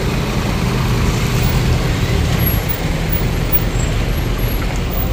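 Steady road traffic noise: a continuous low rumble of vehicle engines and tyres.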